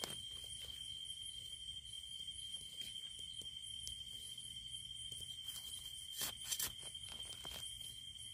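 Insects trilling steadily in the forest: one continuous high tone with a higher pulsing chirp over it. A few brief clicks about six seconds in.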